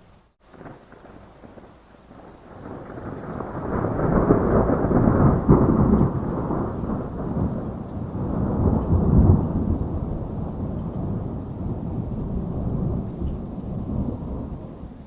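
A long roll of thunder over steady rain: the rumble builds over the first few seconds, peaks twice around the middle, and slowly dies away toward the end.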